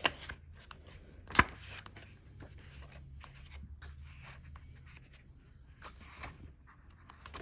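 Pages of a paperback colouring book being turned by hand, with soft, scattered paper rustles and scrapes. A single sharp click sounds about a second and a half in.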